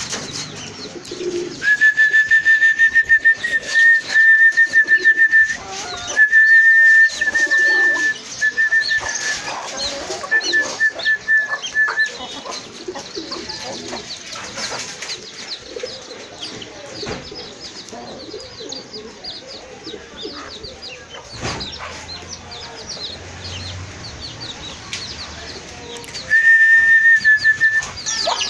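A person whistling one steady high note in several stretches, then once more near the end, to call pigeons and doves. Birds chirp throughout.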